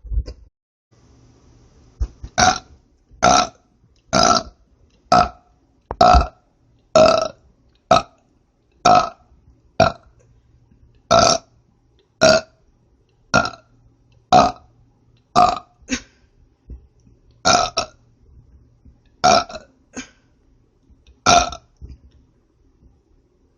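A woman burping back to back: about twenty short burps, roughly one a second, starting about two seconds in.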